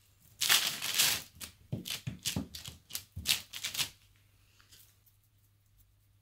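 Sticky, half-set boiled-down cola syrup crackling and snapping in quick, irregular clicks as fingers pull strands of it off a small ball. The burnt syrup has not set hard. The crackling starts about half a second in and stops about four seconds in.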